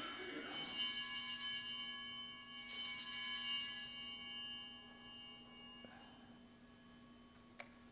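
Altar bells rung at the elevation of the consecrated host, the signal of the consecration: shaken twice, about half a second and nearly three seconds in, each ring of several high tones fading slowly away.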